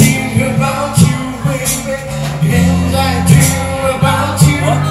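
Live band playing: a man singing into a microphone over electric guitar and a drum kit, with regular drum hits.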